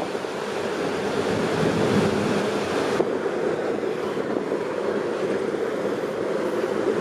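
Steady rush of churning water and wind at the stern of a large passenger ferry under way: the ship's wake, with wind blowing across the microphone.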